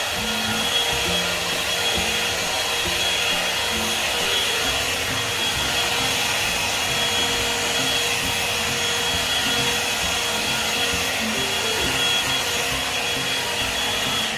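Hot-air volumizer brush (hair dryer and styler) blowing steadily, a thin high whine over the rush of air, switched off at the very end.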